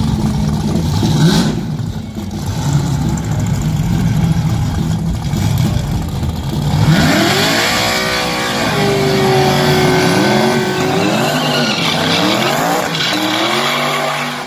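Pickup truck doing a burnout: the V8 is revved up and down over and over as the rear tyres spin. From about halfway the revs swing up and down quickly and hold high for a couple of seconds.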